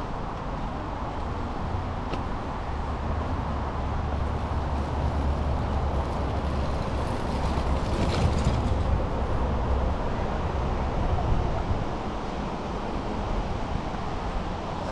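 Steady vehicle road noise with a low rumble, swelling louder about halfway through.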